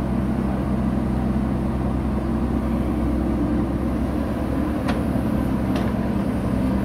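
JCB 3DX backhoe loader's four-cylinder diesel engine running steadily as the machine works its backhoe arm through mud, with a couple of brief faint clicks about five and six seconds in.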